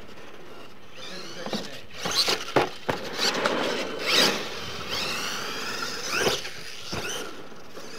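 RC monster truck's motor whining, rising and falling in pitch with the throttle, with tyres scrabbling on loose dirt and several sharp knocks, loudest around the middle.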